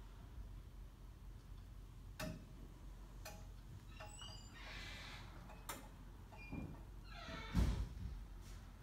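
Pilates Reformer clicking and creaking as its sprung carriage moves and the rider rolls down onto it: a few sharp clicks, squeaky creaks, and a heavier thud about three-quarters of the way through, the loudest sound.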